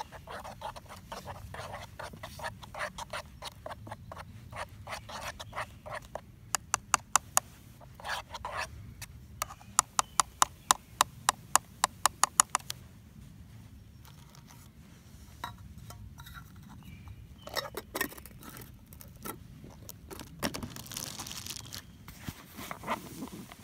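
A plastic spoon stirring beans in a metal camping pot, scraping and clicking against the pot's side. Around the middle the clicks come in quick even runs, about four a second.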